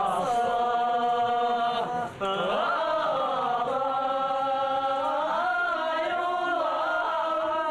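Several voices singing a slow, chant-like Tibetan song in long held notes, breaking off briefly about two seconds in.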